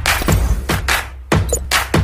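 Electronic intro jingle with a heavy, steady bass under a quick run of sharp percussive hits and swooshes.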